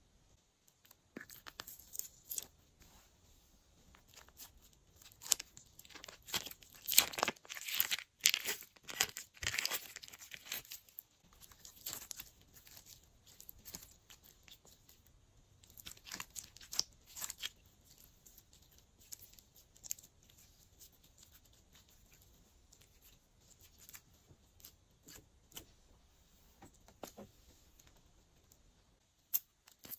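Glossy slime being stretched, squished and folded by hand, giving irregular sticky crackles and tearing sounds that are busiest about six to ten seconds in.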